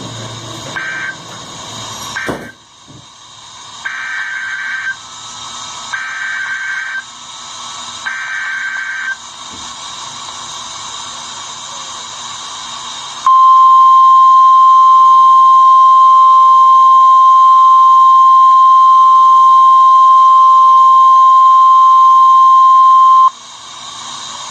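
Emergency Alert System data bursts and alarm tone from a NOAA Weather Radio broadcast. A few short buzzing end-of-message bursts come first, then three one-second buzzing SAME header bursts about two seconds apart. Then the steady, loud 1050 Hz warning alarm tone sounds for about ten seconds, announcing a new warning, and cuts off.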